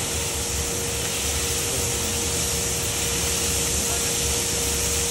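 Drum-type automatic cooking machine at work: a steady sizzling hiss from the hot cooking drum, with a steady machine hum underneath.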